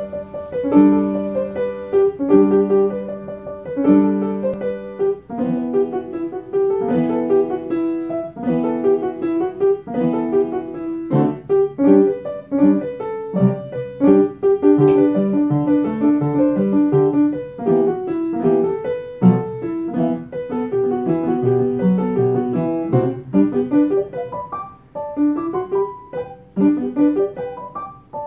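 Upright piano being played solo, a piece that opens with repeated chords and moves on to quicker runs of notes.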